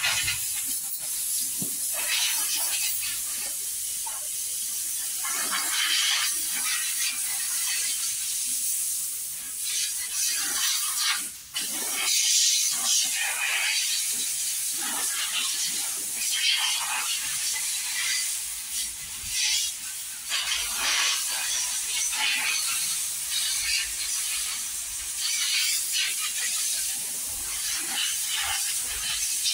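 A pressure jet spraying the scooter during cleaning, heard as a steady hiss that swells and fades as the jet moves, with a brief break about eleven seconds in.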